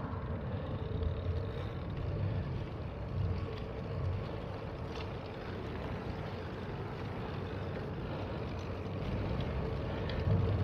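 Steady rumble and wind noise while riding a bicycle, with no single sound standing out.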